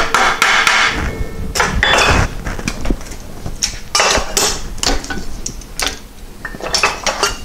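Hammer blows on a sheet-steel patch panel clamped over angle iron in a bench vise, bending it into a 90-degree flange. About a dozen irregularly spaced, sharp metallic strikes with short ringing.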